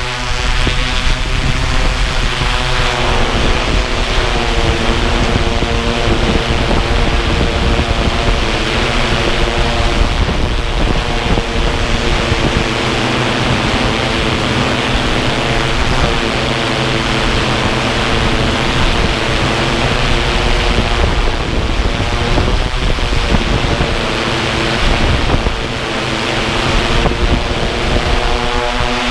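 A multirotor drone's motors and propellers whirring steadily, heard from the drone itself, with a loud rushing of air over the microphone. The pitched propeller whine is clearest at the start and again near the end, and is half-buried in the rushing noise in between.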